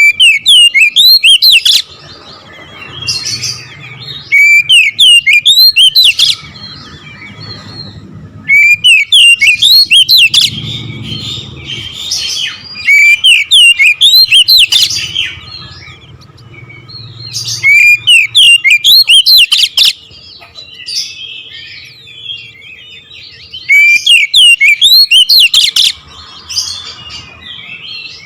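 Oriental magpie-robin (kacer) singing in loud, rapid bursts of rising whistled notes, each about two seconds long and coming every four to five seconds, with quieter twittering between the bursts.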